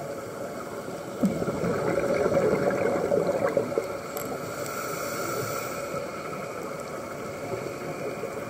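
Underwater recording of a scuba diver's exhaled bubbles gurgling and crackling for about three seconds, starting about a second in, then a quieter steady hiss of water.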